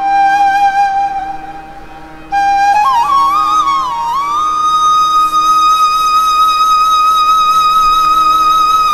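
Flute melody: a long held note that fades about two seconds in, then ornamented turns climbing to a higher note that is held steadily, over a soft steady drone.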